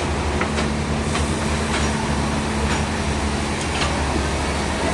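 Sawmill machinery running: a steady low drone and hum with scattered metallic clanks and knocks.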